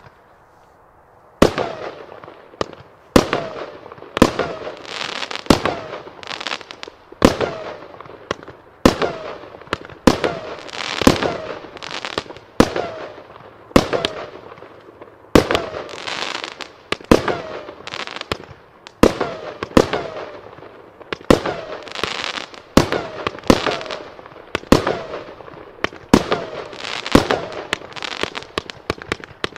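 A 30-shot aerial repeater cake firing: a string of sharp shots and bursts about once a second, each trailing off, the shots coming quicker toward the end.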